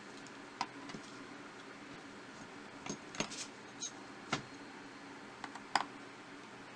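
Small, sharp clicks and taps of tools and parts on a smartphone being taken apart, coming irregularly about a dozen times over a steady low hum.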